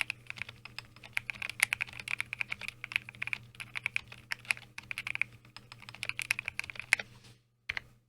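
Mechanical keyboard with a cardboard case, hand-lubed linear switches and Akko keycaps, typed on quickly in an irregular run of keystrokes. The typing stops about seven seconds in, with one last keystroke before the sound cuts off. A faint steady low hum runs underneath.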